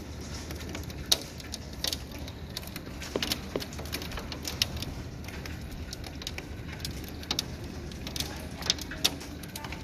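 Hailstones striking hard surfaces: scattered sharp clicks and taps, a few each second at irregular intervals, over a steady low background noise.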